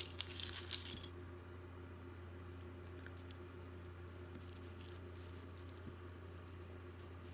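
Small metal jewelry pieces clinking and jingling as they are handled, a burst of jingling in the first second, then a few scattered light clicks, over a steady low electrical hum.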